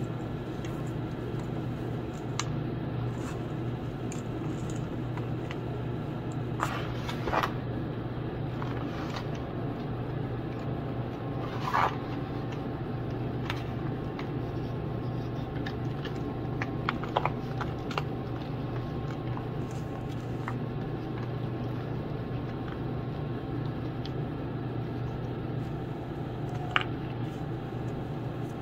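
Hands crumbling blue gym chalk blocks and squeezing the loose chalk powder: soft crunching and scraping, with a few sharper crackles now and then. A steady low hum runs underneath.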